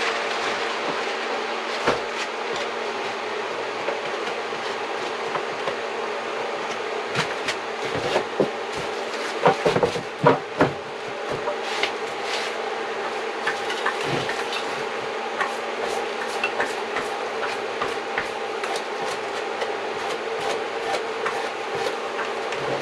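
A steady mechanical hum with a few fixed tones, with scattered knocks and clicks over it and a cluster of louder knocks about eight to eleven seconds in.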